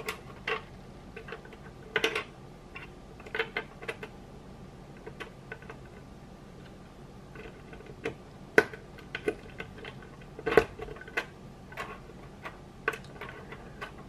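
Small LEGO Technic plastic parts clicking and snapping together as they are fitted by hand: scattered, irregular clicks, a few sharper than the rest.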